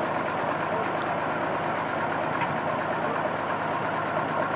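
A truck engine idling steadily.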